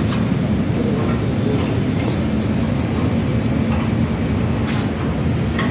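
Steady low mechanical rumble with a faint hum, broken by a few sharp metallic clicks from cable terminals being fastened on a welding machine.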